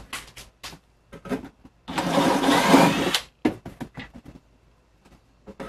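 DeWalt cordless drill with a step bit running for about a second and a half, a little under two seconds in, enlarging a bolt hole in aluminum plate. Light clinks and knocks of handling come before and after.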